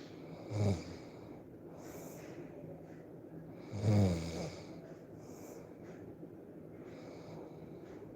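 A person snoring in sleep: two loud, low snores about three seconds apart, a short one near the start and a longer one about halfway through, with softer breathy hisses between them.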